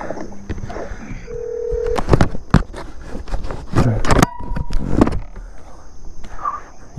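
Electronic beeps from an electric bike: three steady tones, each higher than the last, spread over several seconds, mixed with sharp clicks and knocks from handling the bike.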